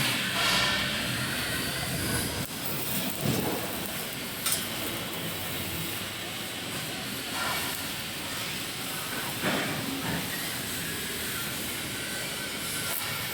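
Robotic welding line on steel furniture frames: a steady hissing factory noise with a few sharp metallic knocks.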